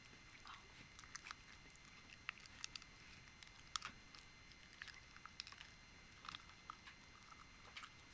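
Faint eating sounds close to the microphone: irregular small wet clicks and crackles of chewing, a few every second.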